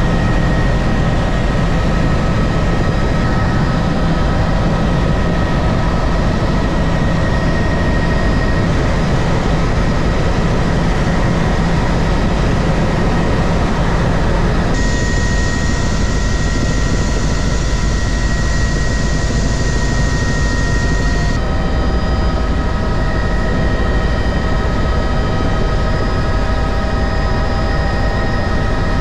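Helicopter in flight heard from inside the cabin: a loud, steady engine and rotor drone with several steady whining tones. The mix of tones changes abruptly a few times.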